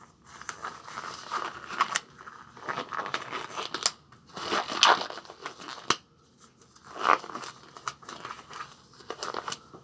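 Crinkling and tearing of plastic wrapping, in irregular bursts with short pauses.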